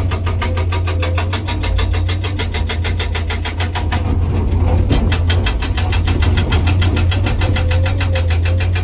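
Hydraulic rock breaker on a Komatsu PC200 excavator hammering hard rock in a fast, even rhythm of about six blows a second, over the steady drone of the excavator's diesel engine. The hammering eases briefly a little before halfway through, then picks up again.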